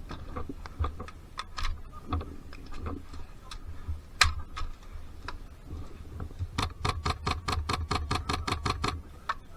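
Airsoft guns firing: scattered single sharp shots, then a steady string of shots about eight a second lasting over two seconds near the end.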